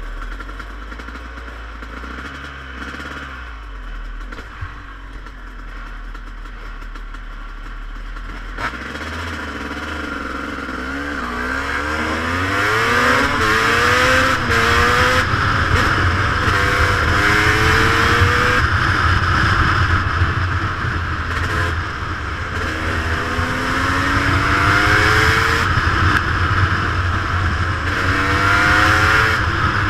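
Dirt bike engine heard from the rider's own camera, ticking along at low speed at first, then pulling away from about ten seconds in, the revs climbing and dropping repeatedly as it shifts up through the gears. Wind noise on the microphone runs under it.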